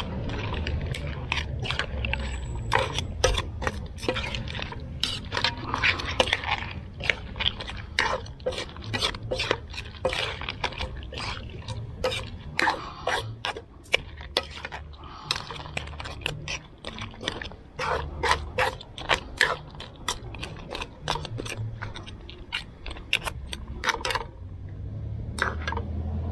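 A spoon stirring blue crab and shrimp curry in a wok: many short clacks and scrapes against the pan and shells, with the thick sauce sloshing. It goes quieter for a moment near the end.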